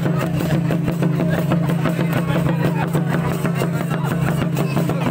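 Santal lagre dance music, loud and distorted: rapid drum beats over a steady low hum, with voices mixed in.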